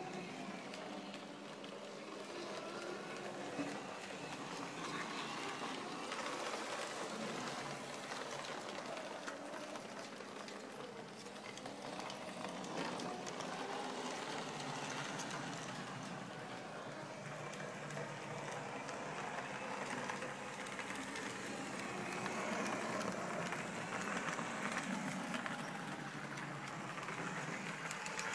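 Small electric model train running on a tabletop layout: the locomotive's motor whirring steadily and its wheels running along the rails.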